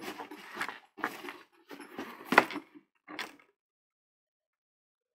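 Handling of a fabric bag and its shoulder strap: rustling with irregular clicks, the loudest a sharp click about two and a half seconds in, from the strap's metal clip and hardware. The sound stops abruptly about three and a half seconds in.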